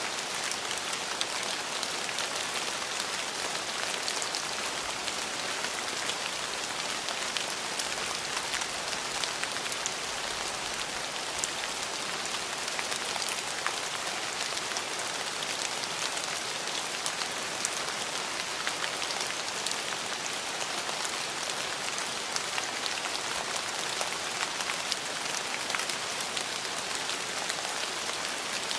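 Steady rain falling on a surface: a constant hiss made of many small, close-spaced drop impacts, with no change in strength.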